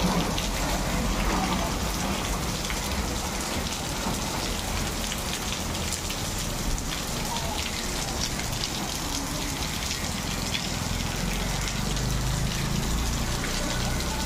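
Heavy rain falling steadily, a constant hiss dotted with many small drop ticks.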